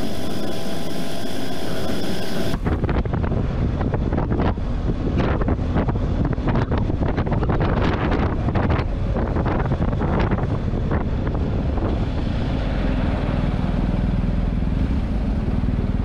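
Motorcycle ride heard through an onboard camera's microphone: engine running with steady tones under wind noise. About two and a half seconds in it changes abruptly to a heavier low rumble with gusty wind buffeting on the microphone as the bike moves slowly through traffic.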